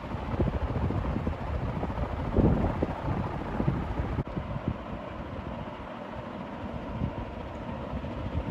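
1981 HRS Evergo L-356 industrial ceiling fan running at high speed: a steady rush of air from the blades, with the fan's draught buffeting the microphone in low gusts that settle after about four seconds. Its bearings make no noise of their own; only the air and a faint hum are heard.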